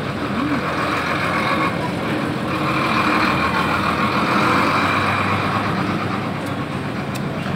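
Steady noise of passing road traffic, one vehicle swelling louder around the middle and then easing off.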